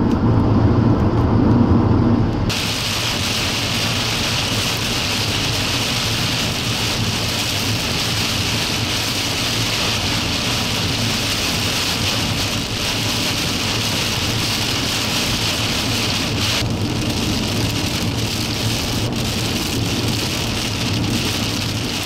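A car driving on a highway with low road and engine rumble. About two and a half seconds in, torrential rain from a supercell's core suddenly starts pelting the car's roof and windshield, a steady loud hiss over the tyre noise.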